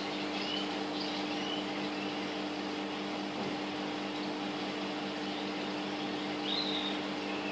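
Steady machine hum over a hiss, with a few faint high chirps from parrots: a couple near the start and another near the end.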